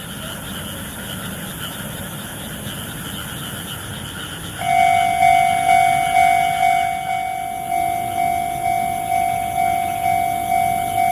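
A chorus of frogs calling from rice paddies. About four and a half seconds in, a Japanese level-crossing alarm starts ringing, a steady repeated tone about twice a second, and it becomes the loudest sound over the frogs.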